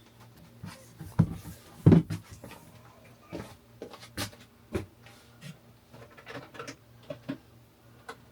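Irregular clicks and knocks of a flashlight and its battery being handled, as the rechargeable battery is taken out and a regular battery is fitted; the two loudest knocks come about one and two seconds in, with lighter clicks after.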